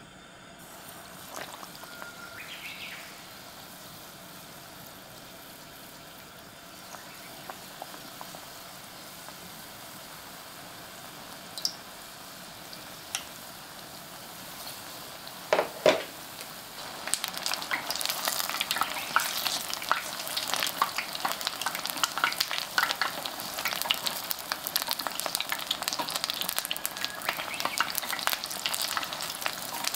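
Battered eggplant deep-frying in oil in a pan: a steady hiss at first, then from about halfway a dense, louder crackling sizzle as the pieces fry. A couple of sharp knocks come just before the sizzle grows louder.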